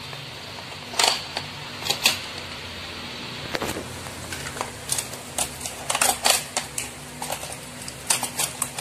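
Hard plastic clicks and clatters of a toy race track set and small toy cars being handled: a few separate clicks in the first four seconds, then quick runs of clicks about six seconds in and again near the end.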